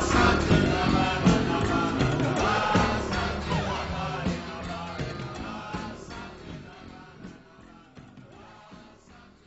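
A song with a band playing, fading out slowly as the track closes.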